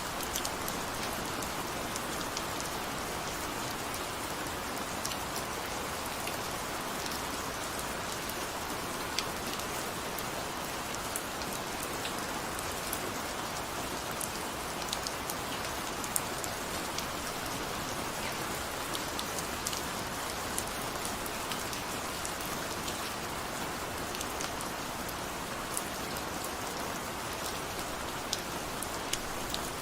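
Steady rain falling, an even hiss with scattered sharp individual drop ticks throughout.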